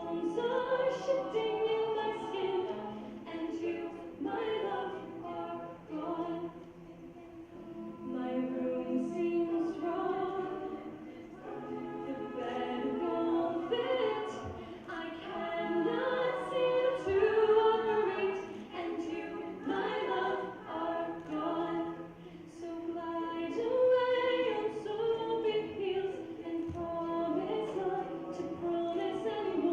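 An a cappella vocal group singing in harmony, several voices without instruments.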